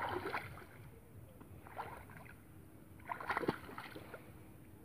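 Water splashing and sloshing around the legs and hands of people wading in shallow water while a snakehead fish is worked free of a monofilament net, coming in three short bursts, the loudest near the end.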